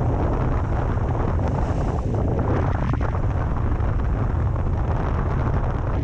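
Strong wind rumbling steadily on the microphone, mixed with the wash of sea surf.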